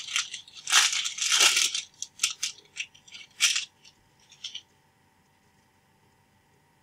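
2016 Bowman Draft baseball cards being handled: a stack rustles and slides card against card for about two seconds, then a string of sharp taps and clicks follows. About two-thirds of the way through, the sound drops out to silence.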